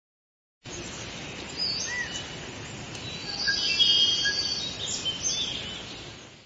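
Birds chirping and whistling, with many short rising and falling calls over a steady background hiss. The sound starts abruptly about half a second in and fades out toward the end.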